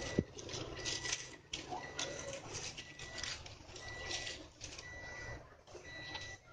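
Dry lidi sticks (palm-leaf midribs) rustling and clicking against each other and a concrete floor as a bundle is shuffled and laid out by hand, with a sharp knock just after the start. A short high beep or chirp repeats about once a second.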